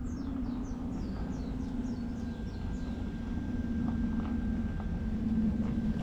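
A bird calling: a quick run of short, high whistled notes, each falling in pitch, about three a second, dying out about halfway through. Underneath is a steady low hum.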